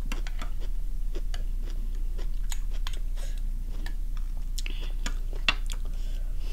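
Chopsticks and a metal spoon clicking against a plate as food is picked up: irregular clicks spread through the whole stretch.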